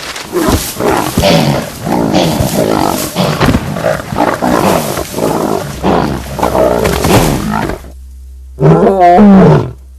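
Lions growling and roaring at close range in a series of rough calls that rise and fall in pitch, then a short pause and one loud drawn-out call near the end.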